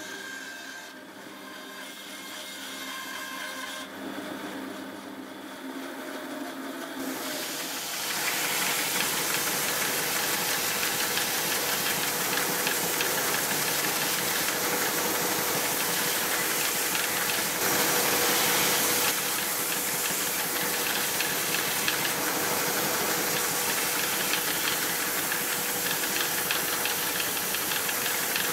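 Bandsaw running as small ash pieces are cut. From about eight seconds in, a belt sander runs steadily, loud, with a steady hum under a hiss, while ash pieces are held against the belt to shape them.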